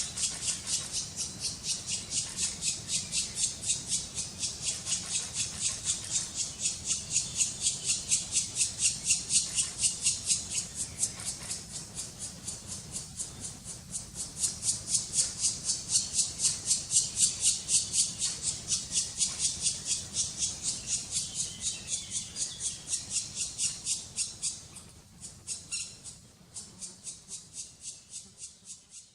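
Black woodpecker nestlings begging for food: a fast, steady run of high-pitched calls, about four a second. It dips for a few seconds around halfway and fades near the end.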